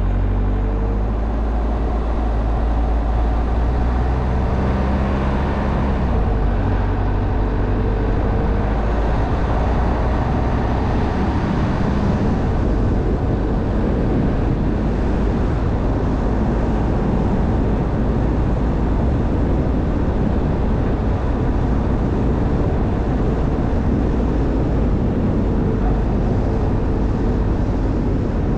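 Car driving along a street: engine running with tyre and road noise. The engine note shifts in pitch over the first several seconds, then settles into an even rush of engine and road noise.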